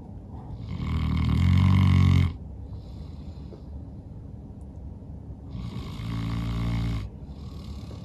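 St. Bernard snoring loudly in deep sleep: two long snores, each over a second, the first the louder, with softer breaths between them.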